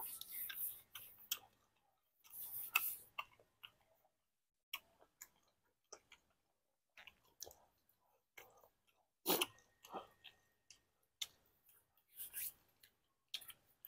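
A person chewing a mouthful of food, with irregular mouth clicks and smacks at uneven intervals.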